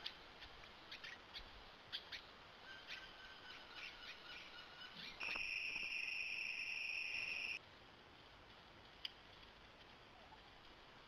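Trail-camera wildlife audio. Scattered short high chirps and clicks come first, then about five seconds in a steady high-pitched night insect chorus plays for about two seconds and cuts off abruptly. Faint background with a single click follows.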